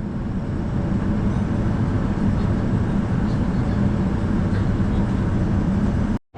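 Steady, loud drone of a passenger airliner's cabin: engine and airflow noise with no changes in pitch.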